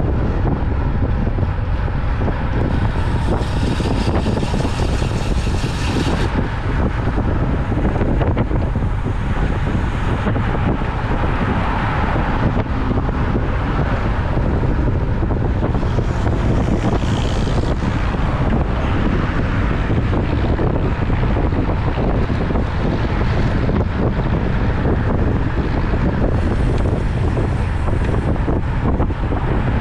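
Steady wind roar buffeting the microphone of a camera riding along on a road bike, with a few brief stretches of brighter hiss.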